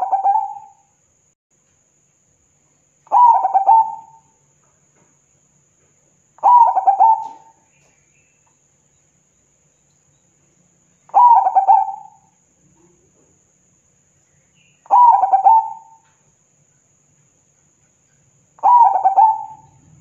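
Zebra dove (perkutut) singing its rolling coo: six short phrases of quick stuttering notes, each about a second long, one every three to four seconds.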